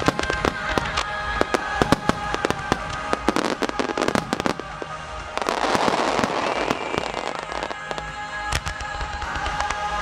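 Aerial firework shells bursting in quick succession, many sharp bangs, with a dense crackle of glittering stars about halfway through. Music plays underneath.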